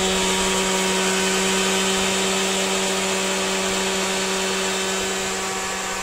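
Hand-held hair dryer running steadily, its small motor humming under the rush of air, blown into a car's engine bay to warm a cold engine so it will start.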